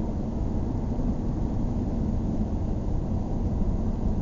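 Steady low rumble of road and engine noise inside a moving car's cabin at cruising speed.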